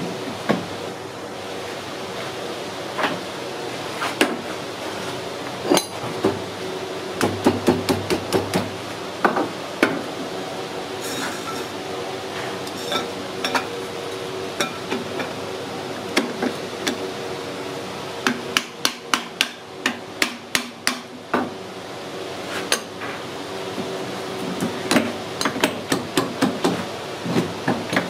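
Hammer tapping on metal in quick runs of sharp knocks, seating a washing-machine motor's wound stator into its aluminium housing on a bench press. A steady hum runs underneath.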